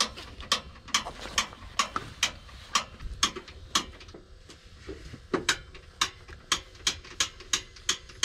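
Piezo igniter of a portable propane grill clicking over and over, about two sharp clicks a second with a brief pause near the middle, as the grill fails to light.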